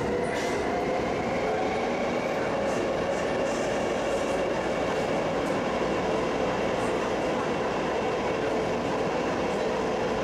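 Taipei Metro train running, heard from inside the passenger car: a steady rolling noise with an even electric whine underneath.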